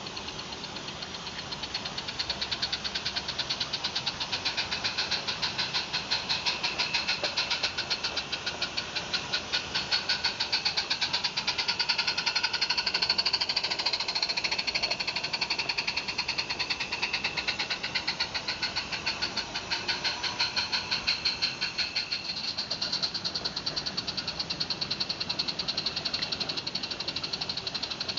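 Exhaust of a Roundhouse Jack type 0-4-0 live-steam garden railway locomotive, chuffing in a fast, even beat as it works a train of wagons. It is loudest around the middle, where it passes close by.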